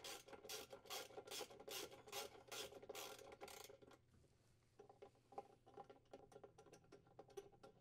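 Faint rhythmic rasping clicks, about four a second, as a 7/16-inch socket is turned to unthread a washer's wash plate mounting screw; they stop a little under four seconds in, leaving only a few scattered faint ticks.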